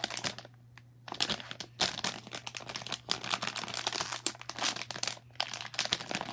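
Candy packaging crinkling as it is handled and torn open, in a dense run of crackles starting about a second in, with a short pause near the end.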